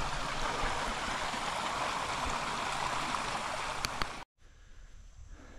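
Floodwater running steadily out of a flooded rice field through a shovel-dug drainage cut. The water sound cuts off abruptly about four seconds in, leaving a much quieter outdoor background.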